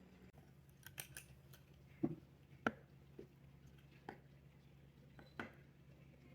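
Half a dozen short, sharp clicks and snips at uneven intervals from craft work on felt pieces, the two loudest about two and nearly three seconds in, over a faint steady room hum.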